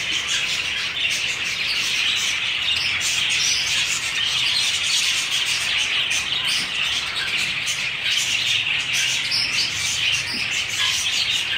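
Heavy rain pouring down steadily, a dense even hiss of rain falling on concrete, trees and a roof.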